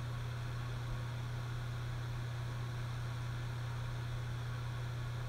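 Steady low electrical hum with a constant background hiss. No distinct screwdriver or handling sounds stand out.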